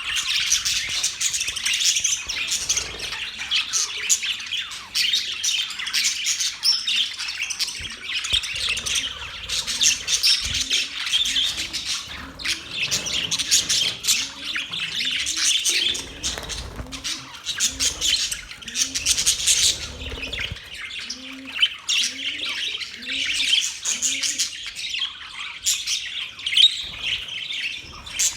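A flock of budgerigars chirping and warbling in a dense, continuous chatter. Through the middle stretch a lower, short rising call repeats about once a second.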